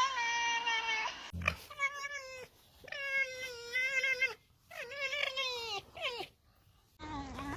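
Fox calling: a series of drawn-out, wavering whining calls, each about a second long with short gaps between, some falling in pitch at the end.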